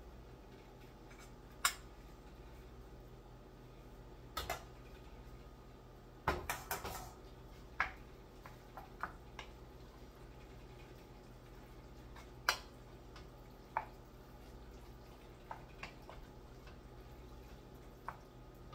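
Metal tongs clinking against a stainless steel saucepan and mixing bowl while cooked spaghetti is lifted across and stirred into a sauce: a dozen or so scattered sharp clicks over a faint low hum.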